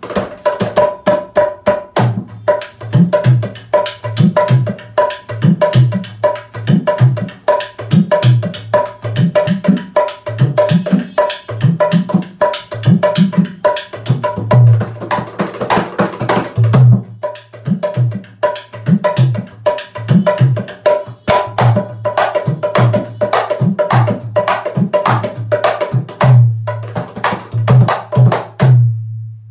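Rope-tensioned (rassi) dholak played with both hands: a fast, continuous rhythm of sharp ringing strokes on the treble head over deep bass-head strokes, with a short break a little past halfway and the playing stopping just before the end.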